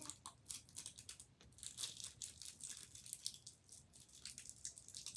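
Faint, quick irregular crinkling and crackling, like a plastic candy wrapper being handled.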